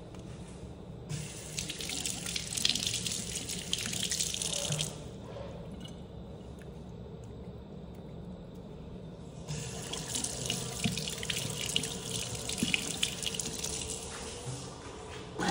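Sensor-operated washbasin tap running water into a ceramic sink, in two spells of a few seconds each, with a quieter pause between them.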